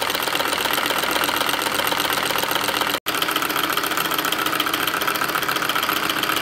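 Four-solenoid V4 model engine running at speed: a fast, even, steady clatter. It breaks off for an instant about three seconds in.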